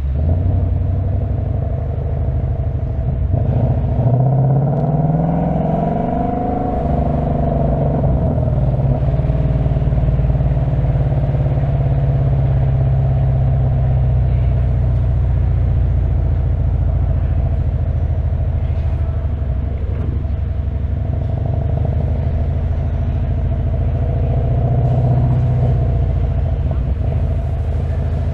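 2025 Ford Mustang GT's 5.0-litre V8 accelerating under an automatic gearbox. The engine note climbs in pitch for a few seconds, then settles into a steady cruising drone, with a smaller rise in revs near the end.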